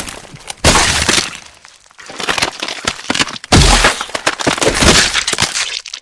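Bone-breaking sound effect: cracking and crunching in bursts. There is a sharp crack at the start and a crunching burst about a second in, then fainter crackles. A long, loud crunch runs from about halfway and cuts off suddenly near the end.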